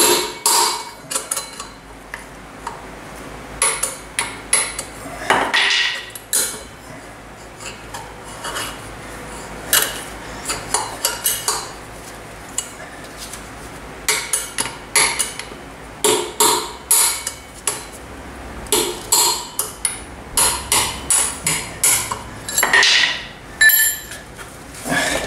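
Hammer striking a steel drift set against a wheel bearing in a motorcycle wheel hub, knocking the bearing out. Sharp metallic blows come in runs of several quick strikes with short pauses between them.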